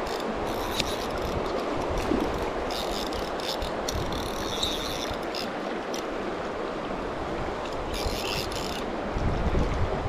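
Fly reel clicking in three short spells of rapid ratcheting as line is reeled in on a hooked fish, over the steady rush of a shallow creek.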